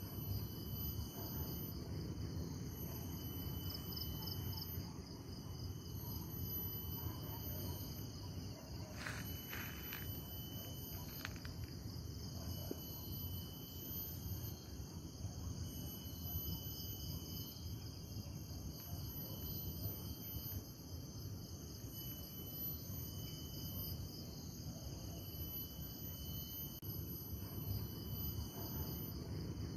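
Chorus of insects and crickets in forest at dusk: a steady high-pitched shrilling with a softly pulsing band, over a low steady rumble.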